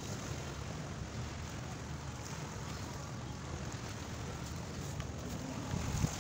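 Steady low rumble of wind on the microphone at the shoreline, with small waves washing in.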